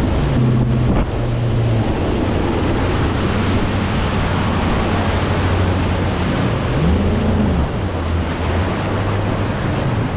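Bass boat's outboard motor running at speed, with wind buffeting the microphone and water rushing past the hull. The engine note briefly rises and falls about seven seconds in.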